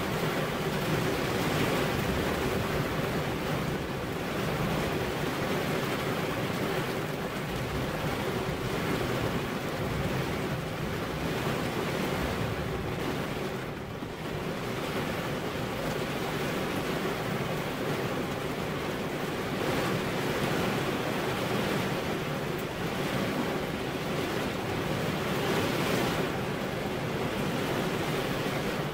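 Heavy rain falling steadily, a dense even hiss that swells and eases slightly, dipping briefly about halfway through.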